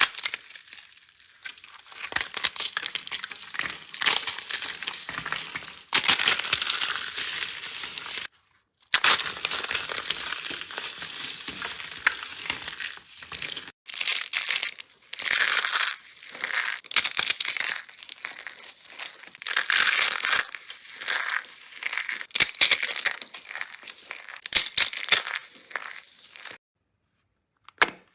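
Dense crackling and crinkling of some material being handled, coming in runs of a few seconds with brief pauses, and stopping for about a second near the end.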